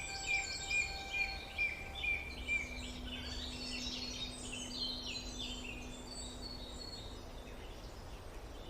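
Several songbirds chirping and trilling over a steady low background hiss, with a faint sustained low tone humming underneath from about two seconds in until near the end.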